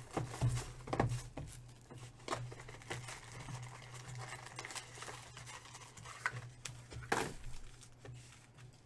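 Cardboard hobby box being opened and foil-wrapped trading card packs rustling and crinkling as they are pulled out and stacked, with scattered sharp taps and knocks from handling, the loudest about a second in and about seven seconds in. A steady low hum runs underneath.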